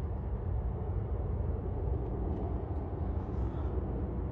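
Steady low outdoor rumble, with a few faint ticks near the middle.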